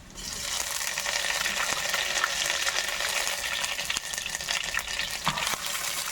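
Ginger paste dropped into hot ghee and oil with garlic paste in a kadai, frying: a sizzle that starts suddenly and keeps up, with many small spattering crackles.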